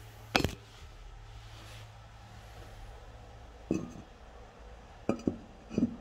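Ceramic cistern lid of a Vaal "Hibiscus" toilet suite being handled and set back on the tank: one sharp clink about half a second in, then a few duller knocks near the end.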